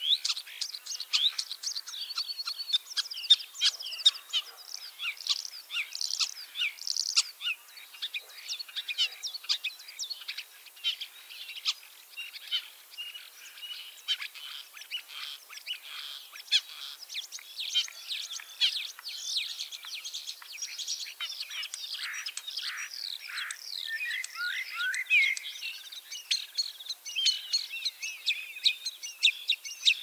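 Common starling singing: a dense, unbroken medley of chirps, short whistles, pitch glides and clicks.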